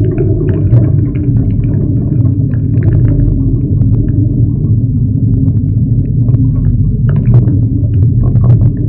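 Storm wind buffeting a GoPro's microphone on a boat: a loud, steady low rumble with many short crackles scattered on top.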